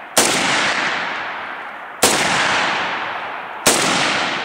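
Three single shots from a Chinese-made Norinco AK-47 rifle: about a second in, then two seconds later, then a second and a half after that. Each crack is followed by a long echo dying away.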